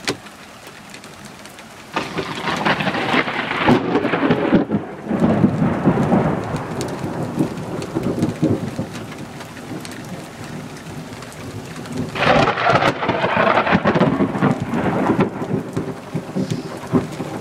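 Thunder rumbling over steady rain. A long rumble starts suddenly about two seconds in, and a second strong rumble comes about twelve seconds in, with raindrops pattering on nearby surfaces throughout.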